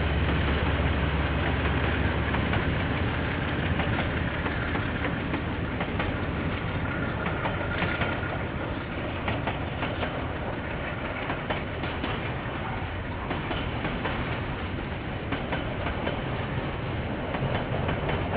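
KiwiRail train rolling past, its wheels clicking over the rail joints, heard through a security camera's microphone. A heavy low rumble at the start eases off over the first few seconds.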